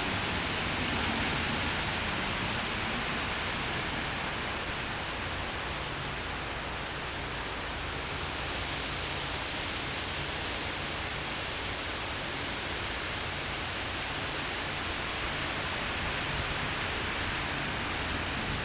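Storm noise: a steady rushing hiss of strong wind and rain with a low rumble underneath, holding at an even level throughout.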